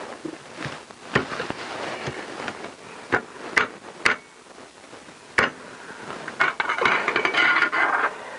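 Metal exhaust header pipes and flanges being worked into place against the engine's exhaust ports and studs: scattered sharp clinks and knocks, then a rattling scrape of metal on metal about six seconds in.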